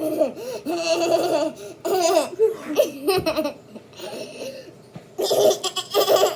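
Young children laughing hard in repeated high-pitched bursts, cutting off suddenly at the end.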